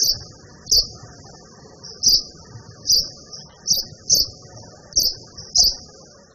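A small bird chirping: about eight sharp, high chirps, roughly one a second, over a steady high twittering.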